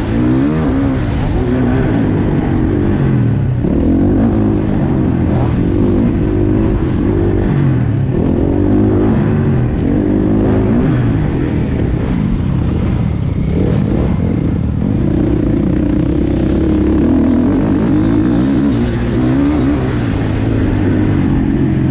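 KTM 450 SX-F single-cylinder four-stroke motocross engine, loud and continuous, revving up and falling back over and over as the bike is ridden.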